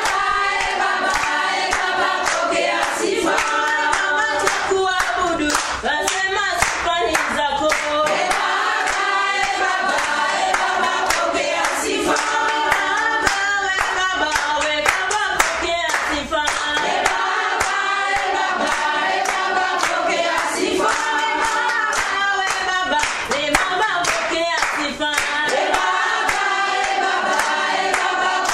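Choir singing a Swahili worship song, accompanied by rhythmic hand clapping.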